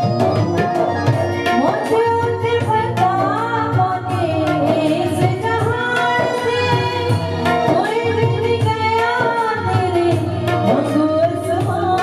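A woman singing a Punjabi Christian devotional song (Masihi geet) with tabla accompaniment.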